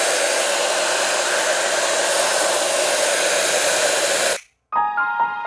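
Handheld hair dryer blowing steadily. About four and a half seconds in it stops abruptly, and after a moment of silence instrumental music starts.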